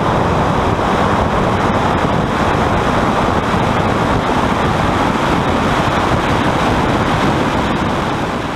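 Steady, heavy wind noise buffeting the microphone of a camera mounted on the outside of a car running at speed down a drag strip, tapering off near the end.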